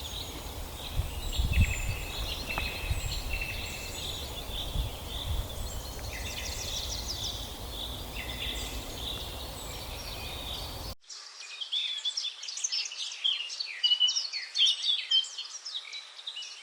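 Several birds chirping and trilling over a low, steady rumble. About eleven seconds in, the sound switches abruptly to a different recording: a denser chorus of many birds chirping with no rumble beneath.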